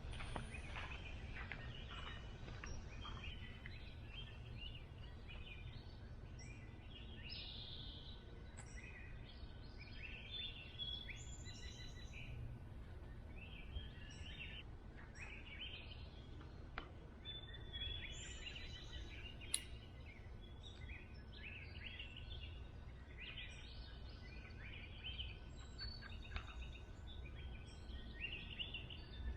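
Several songbirds singing and calling over a steady low outdoor rumble, with a couple of sharp clicks partway through.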